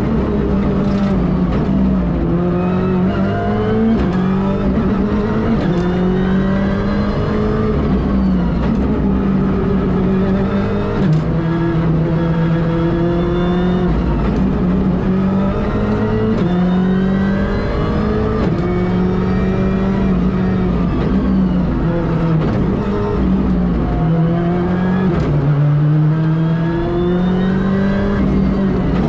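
Ford Fiesta R5's turbocharged 1.6-litre four-cylinder engine driven hard, heard from inside the car: the pitch climbs through the revs, drops at each gearshift and falls away on braking for corners, over and over, with a few short sharp cracks.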